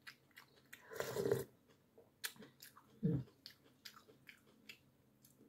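Close-up chewing with wet mouth clicks and smacks, and light clicks of a metal spoon on the plate. The sounds are scattered, with two louder moments about a second and three seconds in.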